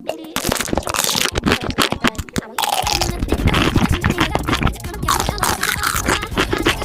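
Close-miked crunchy biting and chewing of food, a rapid run of crisp crunches, played back sped up. Music joins about two and a half seconds in.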